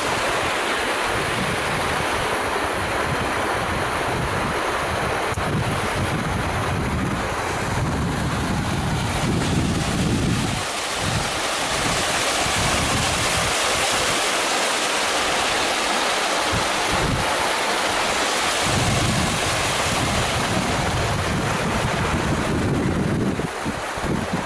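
Mountain stream rushing down a steep rock slab: a steady hiss of water that grows louder about nine seconds in. Wind buffets the microphone in irregular low gusts throughout.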